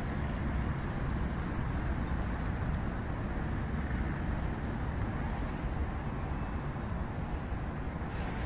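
City street ambience: a steady rumble of passing road traffic.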